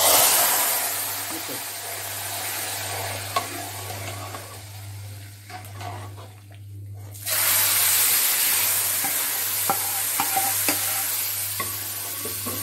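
Hot ghee tadka of cumin seeds and black pepper poured into boiled whole moong dal in a pressure cooker, sizzling loudly at first and slowly dying down. A spoon then stirs it through; the sizzling hiss comes back suddenly about seven seconds in, with light clicks of the spoon against the pot.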